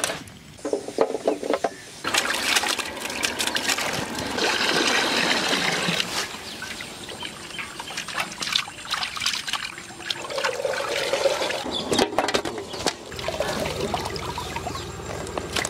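Water pouring and sloshing in a vessel, with scattered knocks and clatter, as raw chicken pieces are washed.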